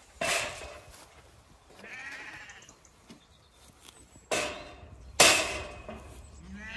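Zwartbles ewes bleating, about four separate calls: a loud one at the start, a fainter one about two seconds in, and two more loud ones close together a little past the middle.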